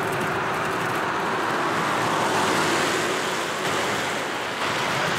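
Road traffic noise, an even rushing of tyres on the street, swelling about halfway through as a vehicle passes.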